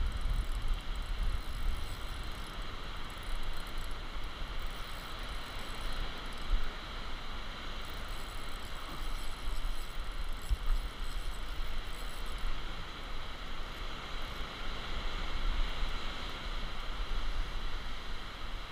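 Wind buffeting the microphone in a fluctuating low rumble, over a steady hiss of sea.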